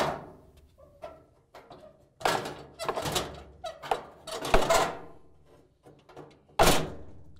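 A GE dryer's drive motor and blower wheel pushed and worked into the plastic blower housing: several scraping, knocking handling sounds, with a sharp thunk about six and a half seconds in.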